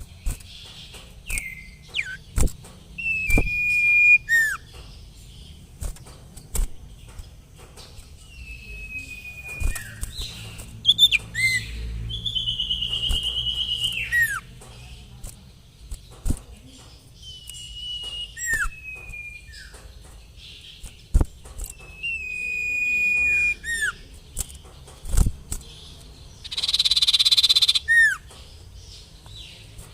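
Common iora (sirtu) calling. It gives long, drawn-out whistles that drop at the end, short downward-swooping notes, a buzzy trill about twelve seconds in, and a harsh rasping call near the end, with scattered sharp clicks between.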